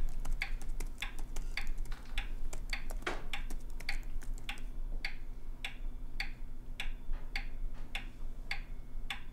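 Regulator pendulum wall clock ticking steadily, a little over two ticks a second, over a low steady hum.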